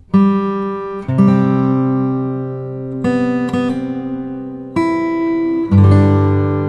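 Acoustic guitar music: strummed chords ringing out and fading, a new chord struck about every one to two seconds.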